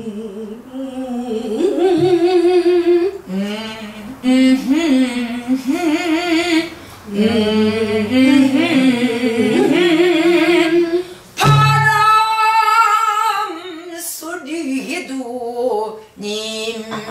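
A woman singing a Namdo folk song in the husky traditional style, in phrases of a few seconds with a heavily wavering pitch. A few dull strokes on a buk barrel drum mark the beat, one clearly about eleven seconds in.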